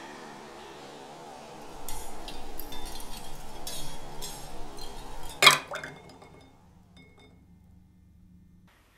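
Ice cubes rattling and clinking in a glass tumbler for a few seconds, ending in one loud, sharp clink with a short ring about five and a half seconds in.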